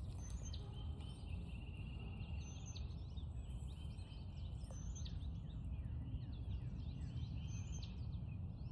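A bird singing short chirping phrases every couple of seconds over a steady low rush of outdoor background noise.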